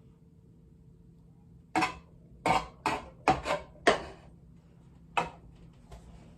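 A run of seven sharp clattering knocks from hard objects being handled or set down. Six come close together from about two to four seconds in, and one more follows a second later.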